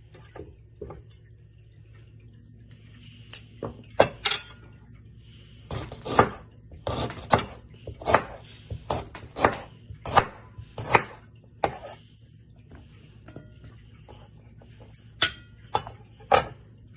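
Kitchen knife cutting ginger on a cutting board: a run of sharp knocks about two a second in the middle, with a few scattered knocks before and near the end.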